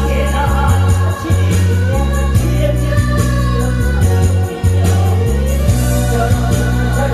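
A singer performing a Korean song through a PA system over an amplified backing track with a heavy, pulsing bass line.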